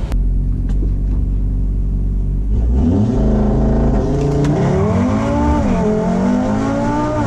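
Audi RS3's turbocharged inline five-cylinder engine held at steady revs on the start line, then launching at full throttle about two and a half seconds in and pulling hard, its pitch climbing and dropping back at each quick upshift of the gearbox.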